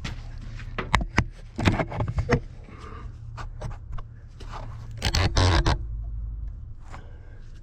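Scraping and knocking as a cover panel is handled and worked back into place on a Cat 953C track loader: a couple of sharp knocks about a second in, scraping around two seconds, and a longer, louder scrape a little after five seconds.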